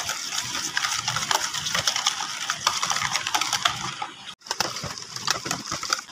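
Wire whisk beating wet chocolate cake batter in a bowl: a rapid, irregular run of clicks and clinks as the whisk strikes the bowl, with a brief break about four and a half seconds in.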